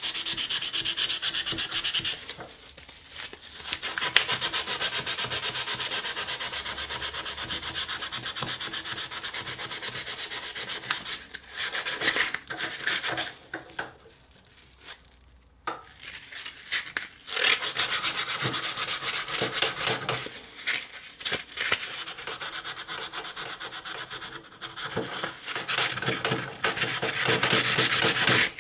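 Abrasive paper rubbed by hand over the steel frame of an antique Bulldog revolver in fast, short back-and-forth strokes, scouring off rust. The scraping stops briefly about 3 s in and again for a couple of seconds around 15 s in.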